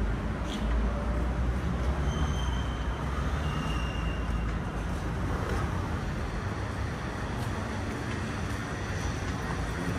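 Steady low rumble of city background noise, with no single event standing out.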